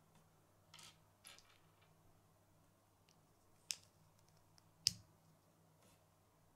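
Small plastic Lego pieces being handled and pressed together: a couple of soft rustles, then two sharp clicks as a part is snapped onto the little build, the second click the louder.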